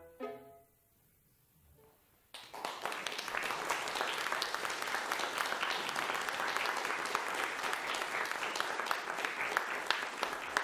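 The last notes of a flute, violin and piano trio ring off at the very start. After about two seconds of hush, an audience starts applauding and keeps up steady clapping.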